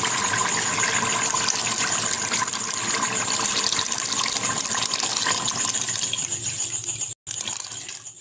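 Water poured from a jug into a pressure cooker pot of browned beef, gushing and splashing steadily as the pot fills. It fades out near the end, after a brief break about seven seconds in.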